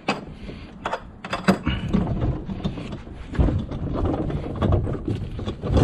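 Handling noise from a plastic kayak being shifted on a car's roof-rack bar: scattered hollow knocks and clicks, including sharp ones about a second and a half in and again near the end, over low rumbling and rustling close to the microphone.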